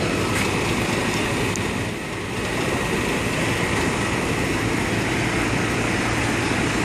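Steady rumble of fire engines' diesel engines running beside a wet street, with continuous street and traffic noise.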